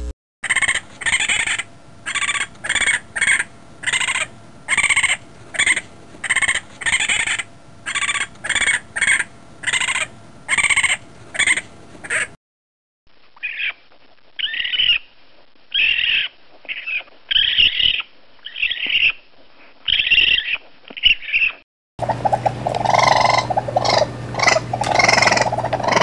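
Raccoon screams: repeated short, high-pitched calls, one or two a second, in three separate recordings split by brief silences. The last recording has a steady low hum under the calls.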